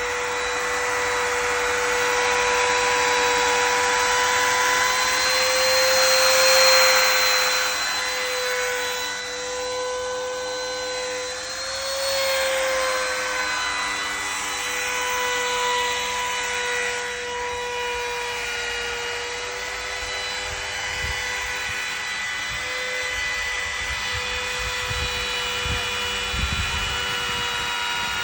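Small electric power tool running steadily with a high whine, working into wood. Its pitch wavers slightly as the load changes, and the cutting noise is heaviest in the first several seconds.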